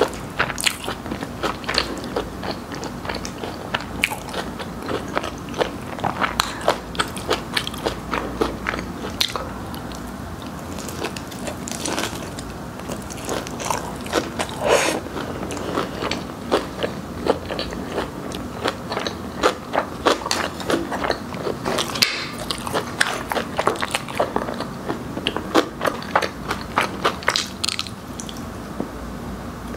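Close-miked eating sounds: many quick crunching bites and chewing of crispy fried chicken, heard over and over.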